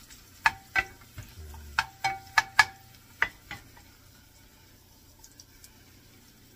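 A wooden spoon knocks sharply against a frying pan about eight times, the pan ringing briefly, while stirring garlic cloves frying in oil. After about three and a half seconds only a faint sizzle remains.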